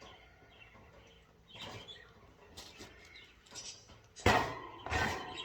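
Metal wire bird-cage parts rattling and scraping as they are handled, then two loud metal clanks about four and five seconds in.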